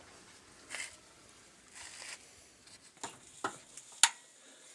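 A few scattered sharp clicks and brief scraping rustles of tools and parts being handled, the loudest click about four seconds in.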